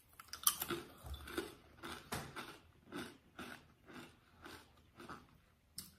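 A person biting into and chewing a crisp cracker: a string of crunches, about two to three a second, growing softer as it is chewed down.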